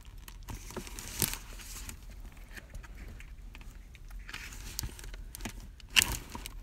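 Paper pages of a K-pop album photobook being turned and handled, rustling in short bursts, with one sharper paper slap near the end.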